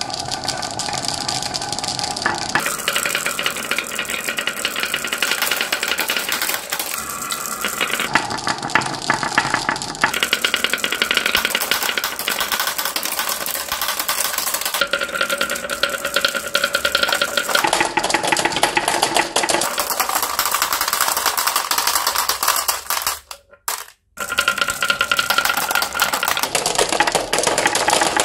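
Glass marbles rolling down grooved wooden wave tracks: a dense, continuous clatter of clicks as they knock against the wood and each other over a steady rolling rumble. Near the end, marbles drop and clack into a plastic basket.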